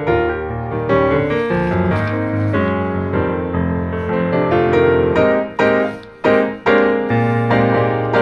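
Piano music: a running tune of chords and melody notes, broken about five and a half seconds in by a few short, clipped chords with brief gaps between them.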